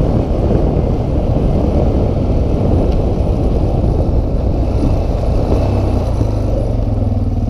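Sport quad's engine running under throttle along a dirt track, then easing off about six seconds in and settling to a steady low idle as the quad slows.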